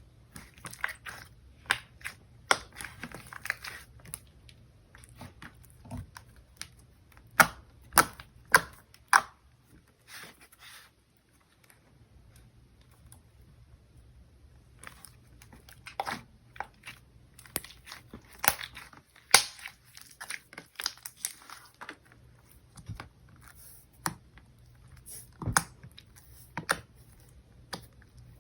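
Hands squishing and stretching a white slime made with coconut-scented lotion, giving irregular sticky clicks and pops, with a quiet pause about ten seconds in.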